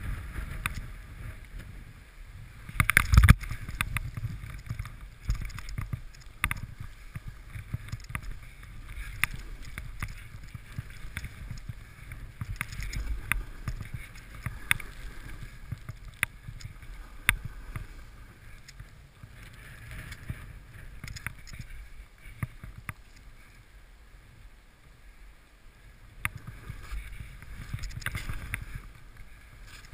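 Snowboard sliding and turning through deep powder snow: a steady low rush with scattered sharp knocks and scrapes, loudest in a burst about three seconds in. Near the end fir branches brush past and the sound grows louder.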